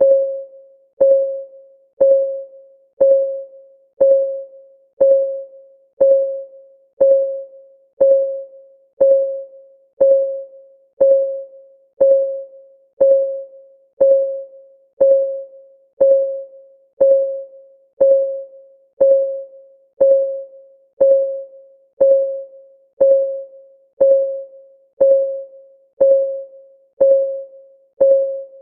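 Countdown timer ticking once a second, steady and even. Each tick is a short, pitched click that dies away quickly.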